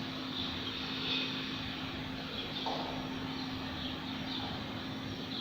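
Steady low hum over a faint, even background hiss, with no voice.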